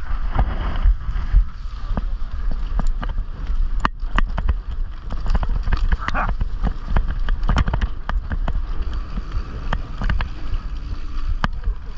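Loose handlebar-mounted GoPro rattling and knocking as the mountain bike rides down a dirt trail: many irregular sharp clicks over a low rumble.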